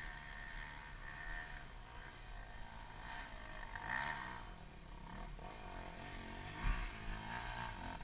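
Off-road motorcycle engines ticking over at idle, with a brief rev that rises and falls about four seconds in and more revving near the end, plus a short knock just before seven seconds.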